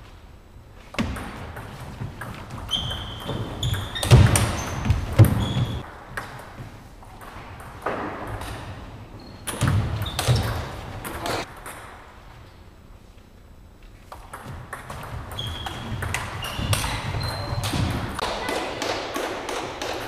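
Table tennis rallies: the ball clicks in quick succession off the rackets and the table, in three bursts of play with short pauses between points. Short high squeaks from shoes on the wooden hall floor are heard among the hits.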